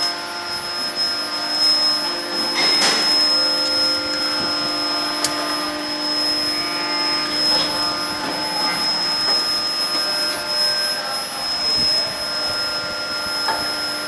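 Medium-frequency KGPS induction forging furnace running while it heats steel bars in its coils: a steady high-pitched whine over a lower electrical hum. A couple of brief clicks sound in the first half.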